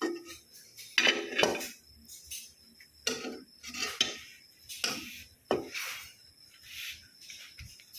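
Metal spoon clinking and scraping against a pot of freshly cooked biryani, in a series of irregular clatters about one a second.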